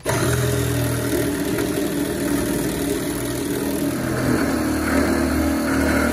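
Cutoff wheel cutting through a metal bumper bracket, running loud and steady.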